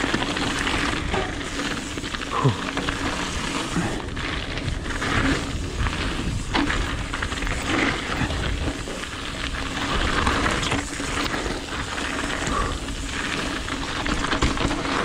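Mountain bike rolling fast down a gravel trail: steady hiss and crunch of the tyres on loose gravel, with a few sharp knocks and rattles from the bike over bumps.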